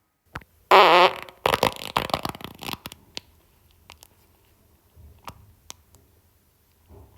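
A loud, pitched fart lasting under half a second, followed about half a second later by a spluttering run of shorter farts for over a second.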